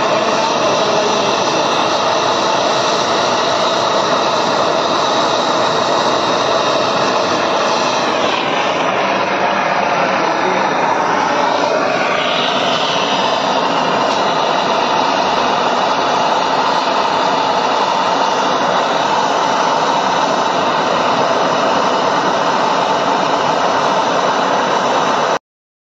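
A gas brazing torch's flame hisses steadily as it heats a copper pipe joint on an AC compressor's accumulator for brazing. Its tone shifts briefly about a third of the way in, and the sound cuts off suddenly just before the end.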